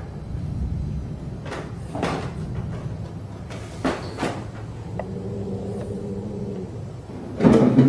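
Several short, irregularly spaced knocks over a low steady hum, with a faint held tone about five seconds in. Music starts near the end.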